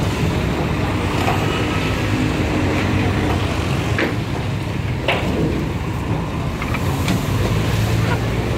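A motor vehicle's engine running steadily, with a few sharp knocks, the clearest two about four and five seconds in.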